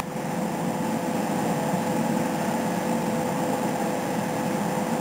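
Steady mechanical hum with a faint, constant whine running through it.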